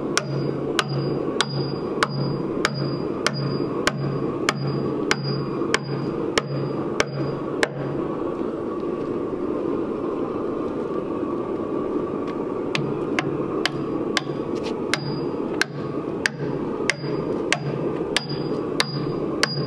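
Steady hammer blows on a timber beam, a little under two a second, each with a short metallic ring. The hammering pauses about eight seconds in and starts again about five seconds later.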